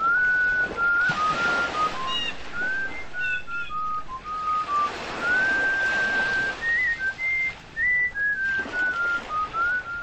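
A slow, wandering melody whistled on one clear, pure tone, with short notes early on and long held notes in the middle, over the rushing noise of waves on a shore.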